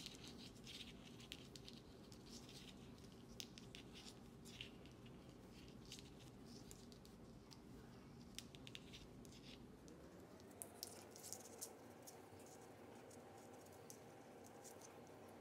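Faint clicking and scraping of circular knitting needle tips and yarn as stitches are knitted, over a low room hiss.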